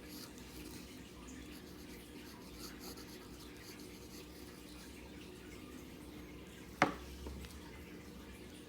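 Faint scratching of a pen writing on paper, then a single sharp click a little under seven seconds in.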